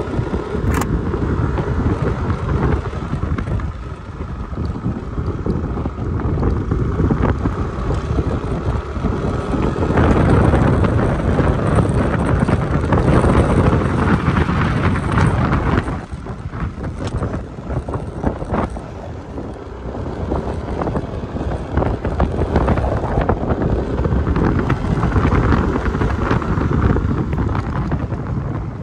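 Wind buffeting the microphone on a moving motor scooter, over the scooter's engine running steadily. The rush grows louder for several seconds around the middle.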